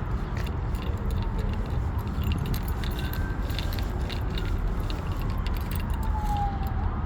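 Outdoor street noise: a steady low traffic rumble with a faint siren gliding down in pitch near the end, and small jingling clicks.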